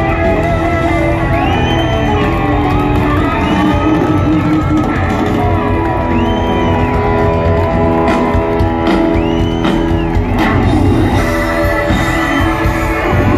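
Live country-rock band playing loudly, with the crowd whooping and yelling over the music.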